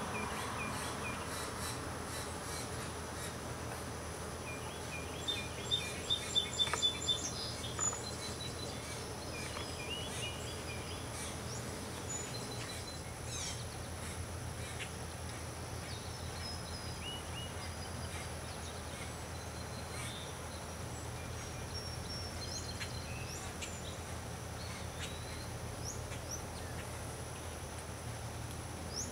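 Outdoor ambience of songbirds chirping here and there, with a quick run of louder chirps about five to eight seconds in, over a steady low hum and a thin, steady high tone.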